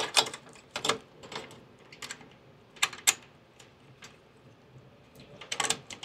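Irregular metallic clicks and clacks as a duct clamp is fitted around the joint of an aircraft air-conditioning bypass valve. One sharp click comes right at the start and a quick cluster near the end.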